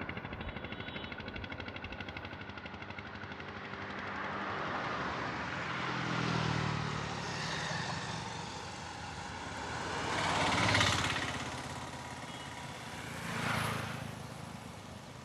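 Processed traffic soundscape: a continuous wash of vehicle noise made from manipulated samples, with a fast flutter near the start. It swells three times, loudest about eleven seconds in, and fades toward the end.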